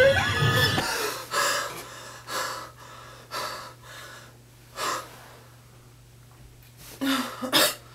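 A woman's frightened gasps and heavy breathing as she is startled awake: a sharp breath about once a second, then a quieter stretch, then two loud gasps near the end.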